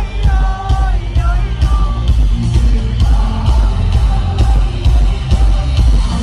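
Live band music played loud through a large concert PA, with a heavy bass beat. A voice calls out a few held notes in the first two seconds, then the band plays on without vocals.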